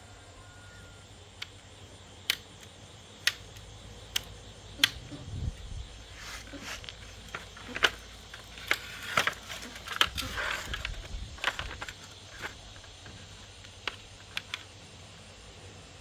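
Irregular sharp clicks and taps, thickening in the middle into a busy stretch of clicking and scraping, over a low steady background hum.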